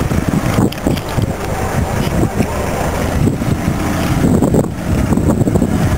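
Loud rumbling wind and handling noise on a camera's microphone as the camera is carried and jostled.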